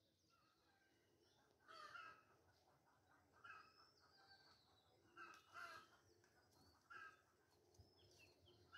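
Faint crows cawing in the open air, about five short harsh calls spread over several seconds, with a few thin higher chirps from smaller birds.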